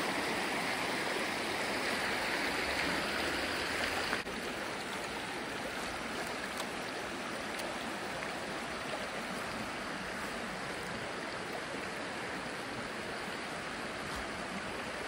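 Shallow creek water running over rocks and riffles, a steady rushing babble, a little quieter after about four seconds.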